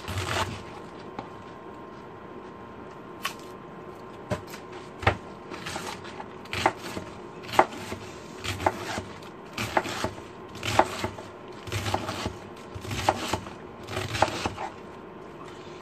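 Chef's knife slicing a wedge of green cabbage into thin strips on a plastic cutting board: a crisp crunch and a knock on the board with each cut. The cuts come about once a second from a few seconds in, speeding up to about two a second later on.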